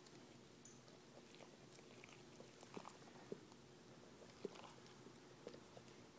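Near silence: faint room hum with a few soft, scattered clicks close to the microphone.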